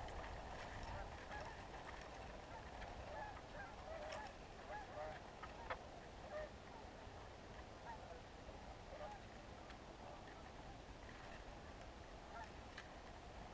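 Canada geese honking and clucking faintly, many short calls overlapping from a flock, busiest in the first half and thinning out later. A few sharp clicks stand out over them.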